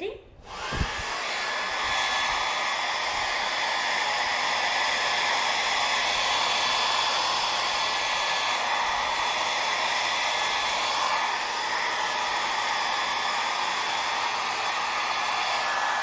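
Compact Bedabanc portable hair dryer switched on at its lowest setting. After a click about a second in, its motor spins up and settles into a steady rush of air with a high, even whine.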